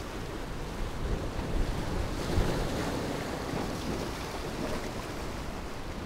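Sea surf washing in and around shoreline rocks, a steady wash of water that swells a little a couple of seconds in, with some wind rumbling on the microphone.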